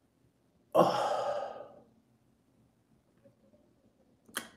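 A woman's long, tearful sigh about a second in, fading away, while she is crying; a short breath sound near the end.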